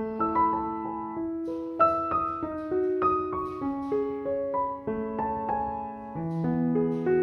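Piano music: a slow melody of single notes struck one after another, each ringing on over held lower notes.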